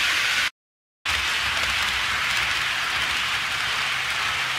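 HO scale model train running on its track with a steady, hiss-like rolling noise. It cuts to silence for about half a second, about half a second in, then resumes.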